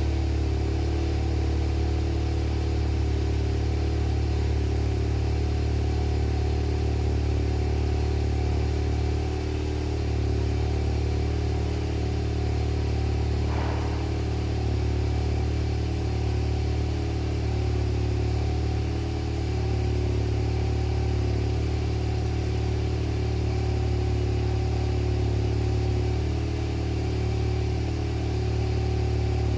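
Car engine idling steadily, its exhaust note a constant low drone with no revving.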